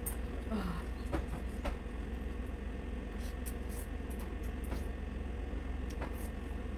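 Someone eating instant noodles with chopsticks: a few faint clicks and slurping, mouth sounds over a steady low hum.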